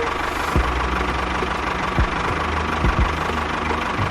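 A small machine's motor running steadily with an engine-like hum, broken by four short low thumps, the last two close together about three seconds in.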